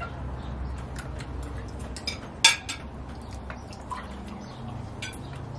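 Drink being poured into glasses at a table, with scattered light clinks and knocks of glasses and tableware; the sharpest clink comes about two and a half seconds in.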